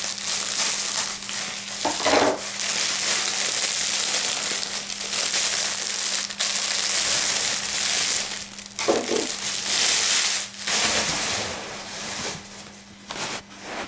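Clear plastic packaging bag crinkling and rustling as a folded jacket is handled and drawn out of it, dying down to a few light crackles near the end.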